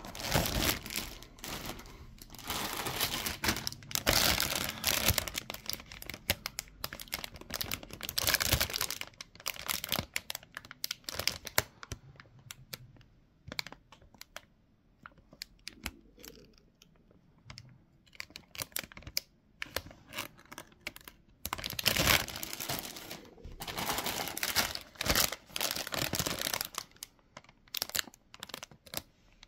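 Clear plastic bags holding model-kit runners crinkling as they are handled, with many light clicks of the plastic runners and parts. The crinkling comes in two longer spells, at the start and again about two-thirds of the way through, with scattered clicks in between.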